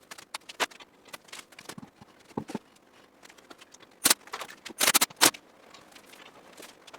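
Scattered metallic clicks and clinks of tools and parts being handled, with a cluster of sharper knocks about four to five seconds in.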